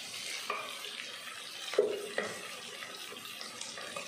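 Sliced onions and curry leaves frying in hot oil with a steady sizzle, while a wooden spoon stirs them around the pot, with a few short scrapes and knocks against the pot.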